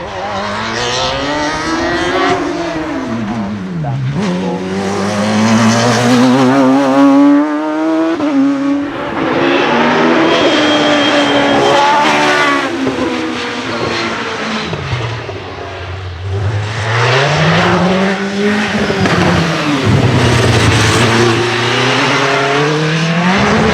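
Racing car engine at full effort on a hillclimb, revs rising and stepping with gear changes, twice dropping deep and climbing again as the car brakes for a bend and accelerates away.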